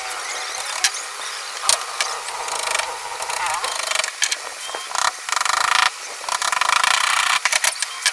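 A hammer knocking on the wooden strips of a lattice door frame, several separate sharp blows, over steady workshop noise.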